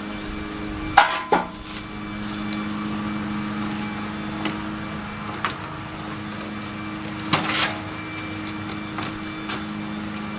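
Scattered knocks and rustles of cardboard and styrofoam packing being handled around heavy grill parts, over a steady low hum.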